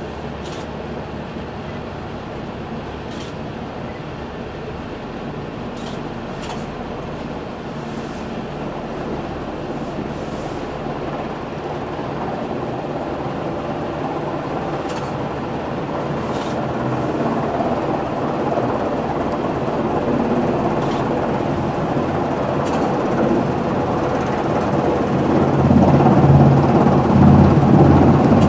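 Coast Guard MH-60 Jayhawk helicopter approaching and coming in to land, its engine and rotor noise growing steadily louder. The low rotor beat is heaviest near the end as it hovers close over the flight deck.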